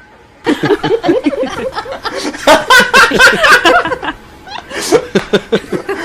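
A person laughing hard in rapid, repeated bursts, starting about half a second in and loudest in the middle.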